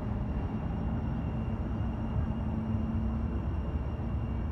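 Class 399 Citylink electric tram-train moving past on street track as it pulls away: a steady low rumble with a hum running through it.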